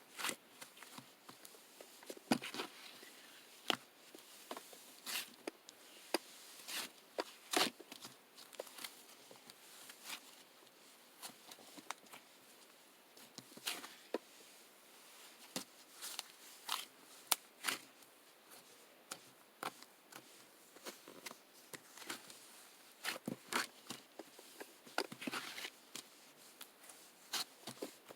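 Irregular light clicks, taps and short rustles of handling, scattered unevenly through the stretch with no steady rhythm.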